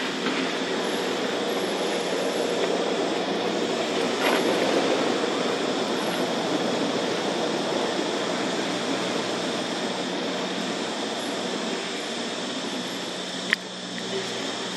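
Steady, continuous background drone with a constant low hum, and a single sharp click near the end.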